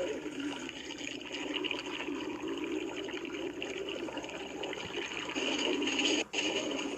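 Stomach sound effect: continuous watery gurgling, with a brief drop-out about six seconds in.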